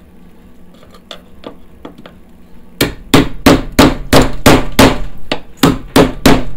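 A hammer and chisel striking the steel seam of a car's sill to split it apart where the spot welds have been drilled out. A few light taps, then from about three seconds in a fast run of loud metallic blows, about three a second.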